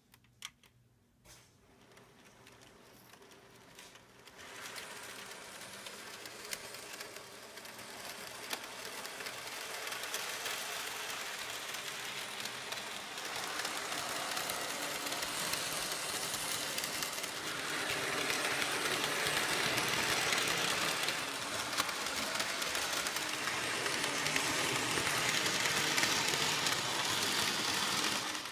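N scale model train running around its track: a steady motor-and-wheel whir that grows louder as the train comes closer. A couple of light clicks come in the first second or so.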